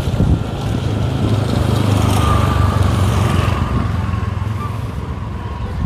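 A motor vehicle's engine running on the move, a steady low drone that grows a little louder about two seconds in and eases off toward the end.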